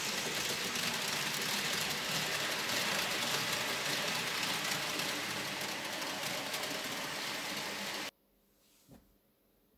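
N-scale model train running on the layout: the small electric motor whirring and the wheels rattling over the track in a steady noise. It cuts off suddenly about eight seconds in, leaving near silence with one faint click.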